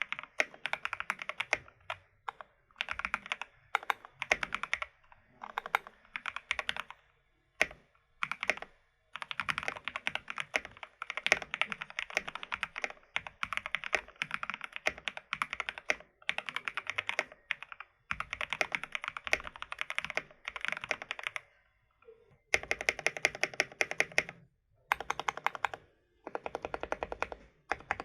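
Typing on a GK61X mechanical keyboard with Gateron Cap Milky V2 switches, in runs of rapid keystrokes one to three seconds long with short pauses between them.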